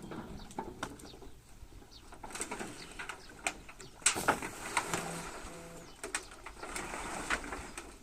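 A dove cooing, two short low notes close together about five seconds in, among scattered clicks and knocks.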